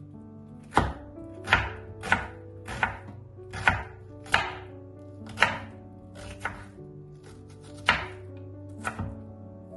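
Chef's knife chopping an onion on a bamboo cutting board: about ten sharp, separate strikes at an uneven pace, roughly one a second. Soft background music plays under it.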